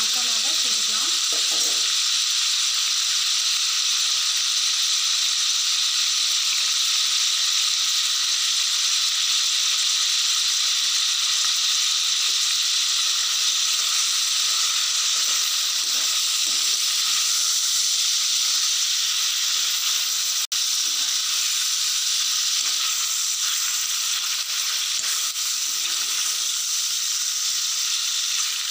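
Chicken pieces frying in groundnut oil in a kadai on a low flame, a steady sizzle, with a steel ladle stirring and scraping the pan now and then. The sound breaks off for an instant about two-thirds of the way through.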